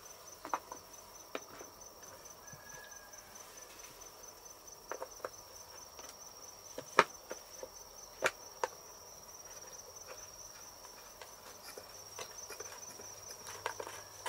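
Insects chirring in a steady high tone, with a handful of sharp knocks and clicks scattered through it. The loudest knock comes about seven seconds in, and two more follow a little after eight seconds.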